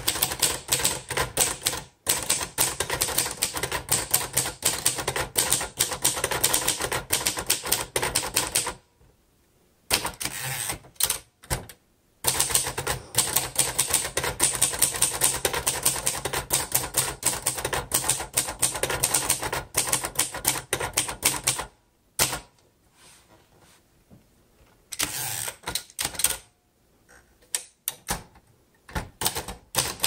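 1956 Royal Quiet De Luxe manual portable typewriter being typed on quickly: runs of rapid keystroke clacks, broken by a few pauses of one to three seconds.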